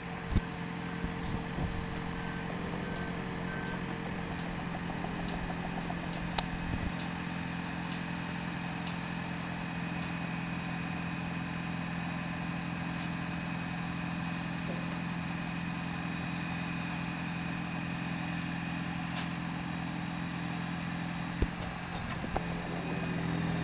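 Heavy diesel machinery running as a steady low drone, from the mobile crane and heavy trucks lifting and unloading a dragline bucket. A reversing alarm beeps in pulses for the first few seconds, then stops. A few sharp knocks are heard.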